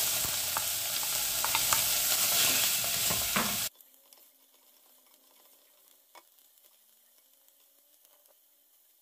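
Diced bacon sizzling loudly in hot lard in a stainless steel pot, with a few clicks of a spoon stirring it. The sizzle cuts off suddenly about four seconds in, leaving near silence.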